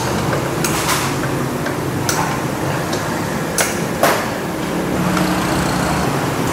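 A few sharp clicks and knocks from tools and parts being handled during work on a scooter, over a steady workshop hum; the loudest two come about three and a half and four seconds in.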